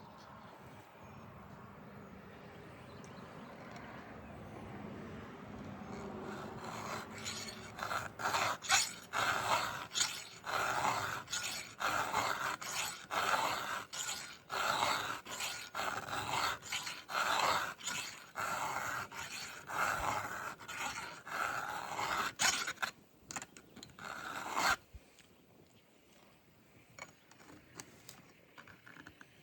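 A 7/32-inch round file rasping back and forth on a Stihl MS 500i chainsaw chain tooth, hand-sharpening the cutter. There are steady strokes at about one every second for most of the stretch, and then they stop.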